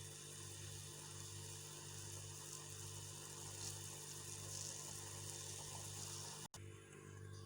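Faint steady hiss of water simmering in a saucepan on a stove, over a steady low electrical hum; the sound cuts out for an instant near the end.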